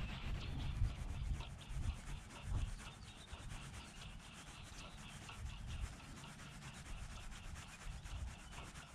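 Spinning reel being cranked during a retrieve: a steady fine rasping with rapid, even ticks from the turning rotor and gears, over a low rumble.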